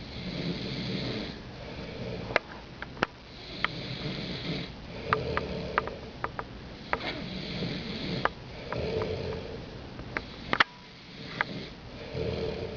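Snoring: slow breaths a few seconds apart, each with a low rattle and a hiss, with sharp short clicks between them.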